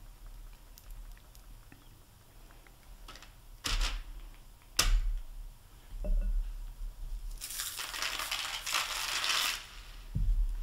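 Plastic dipping tool working a ball in melted chocolate coating in a glass bowl. It gives two sharp taps against the bowl a few seconds in, then a rough, scraping noise for about two seconds near the end.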